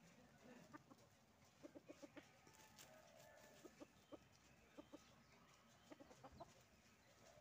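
Domestic chickens clucking faintly: short low clucks in several quick runs of two to four.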